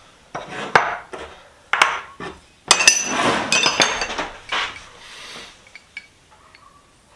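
Loose metal vise parts and tools clinking and clattering as they are handled and pushed aside on a workbench: a quick run of sharp knocks and rattles, busiest in the middle, dying down to a few faint ticks near the end.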